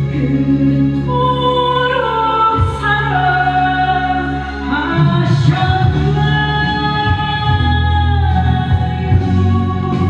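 A woman singing a Korean gospel praise song into a microphone over backing music, holding long notes and stepping between them.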